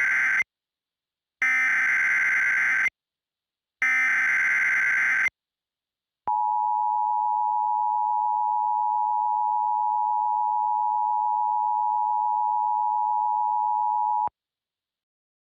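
Emergency Alert System header: three bursts of buzzing digital data tones, each about a second and a half, followed by the two-tone EAS attention signal held steady for about eight seconds and cutting off abruptly.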